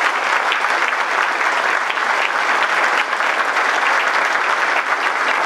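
Steady applause from a crowd of people clapping their hands.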